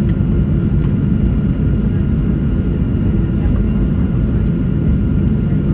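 Steady low cabin rumble of a Boeing 737-800 taxiing, heard from a seat by the wing, with its CFM56-7B engines at idle. A few faint clicks and rattles sound over it.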